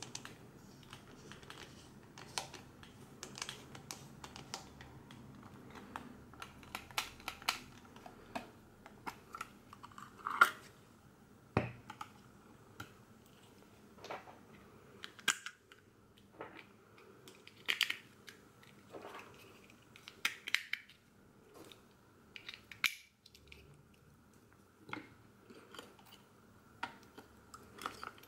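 Handling noise from a Porst Reflex ZR 360 Super 8 camera: scattered, irregular plastic clicks and short rustles as its battery holder is taken out of the pistol grip and pushed back in. The sharpest clicks come about ten and twelve seconds in.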